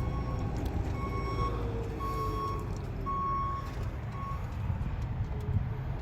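A vehicle's reverse warning alarm beeping, about five evenly spaced beeps roughly once a second that stop about four seconds in, over the low rumble of an engine running.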